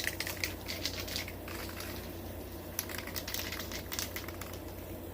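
Aerosol spray can of vinyl and fabric paint hissing in short bursts as a light coat is sprayed, with a click at the start and a pause in the middle, over a steady low hum.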